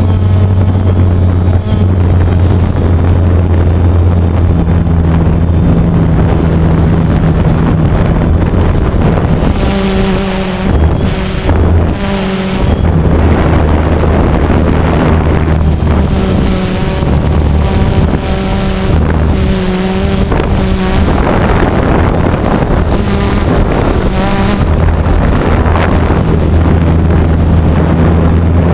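DJI Phantom quadcopter's motors and propellers buzzing loudly, heard close up from the camera it carries. The buzz holds a steady pitch, wavers and shifts up and down for several seconds in the middle as the drone manoeuvres, then settles again. Wind rushes over the microphone throughout.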